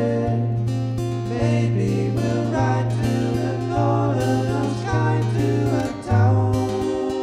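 Song played on acoustic guitar with a low bass line under it, and a sung melody from about a second in until near the end.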